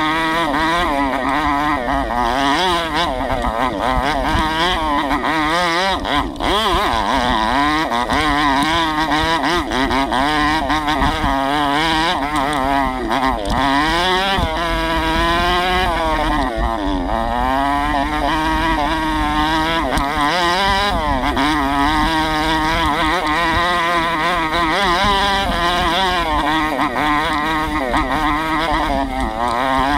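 Single-cylinder 125cc four-stroke dirt bike engine being ridden hard on a rough trail. The revs rise and fall constantly as the throttle is worked, with a brief drop about six seconds in.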